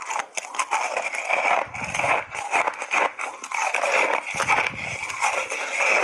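Chunks of refrozen ice being bitten and crunched in the mouth, picked up close by lapel microphones: a dense run of loud cracks and crackles.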